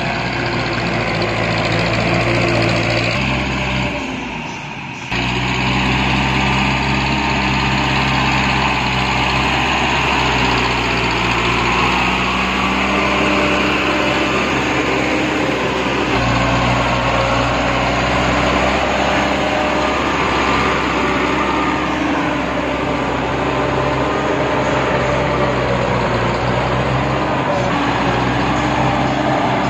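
TAFE tractor's diesel engine running steadily under load as it pulls a rotary tiller through a flooded paddy field. The sound drops briefly about four seconds in, then carries on at the same steady level.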